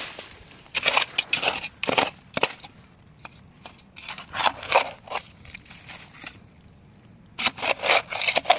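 Small shovel digging into dry leaf litter and soil, crunching and scraping in several bursts of strokes with short pauses between them.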